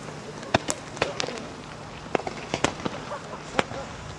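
Fireworks going off: several sharp bangs and pops at irregular intervals, clustered in the first second and a half and spaced out after.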